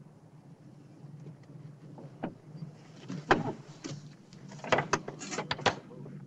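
A solitary-confinement cell door being shut and latched: a run of sharp knocks and clacks, the loudest about three seconds in and a quick cluster near the end, over a steady low hum.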